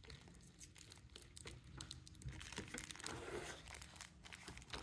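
Faint crinkling and rustling of survival-kit packaging being handled, a scatter of small crackles.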